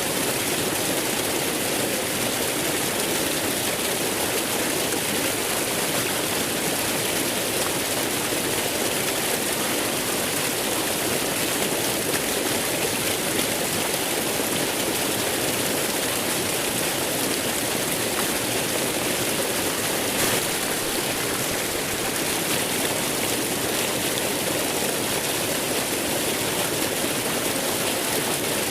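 Waterfall rushing: steady, full water noise with no let-up.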